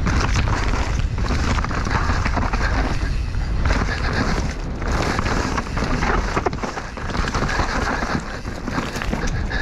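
Wind buffeting the microphone over the steady rattle of a mountain bike descending a rough trail, with many quick knocks and clatters from tyres and bike hitting rocks and roots.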